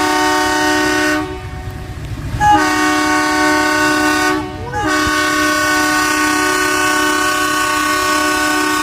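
Indian Railways locomotive horn sounding a steady chord in three blasts: a short one, a second of about two seconds after a brief pause, then a long one of nearly four seconds after only a short break.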